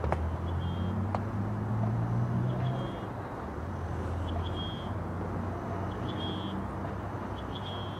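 Outdoor background dominated by a low vehicle rumble, heavier in the first three seconds then easing. Short high chirps repeat every second or so over it.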